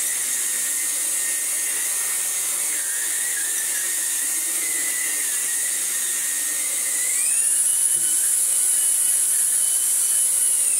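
Vax Blade 4 cordless stick vacuum running with a steady high-pitched motor whine, its powered brush roll working over a rug and its filter freshly washed. About seven seconds in the motor speeds up, the whine rising in pitch and getting louder, and right at the end it begins to wind down.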